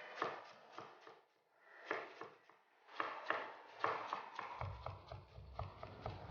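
Kitchen knife chopping on a cutting board: short runs of sharp, irregular knocks a fraction of a second apart. A low rumble joins them after about four and a half seconds.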